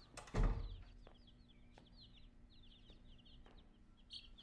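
A box of baby chicks peeping: many rapid, high chirps, each falling in pitch, overlapping throughout. A loud low thud comes about half a second in.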